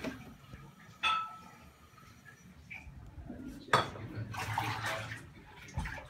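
A sharp clink with a brief ringing tone about a second in, then a louder knock a little past halfway, followed by a rush of noise.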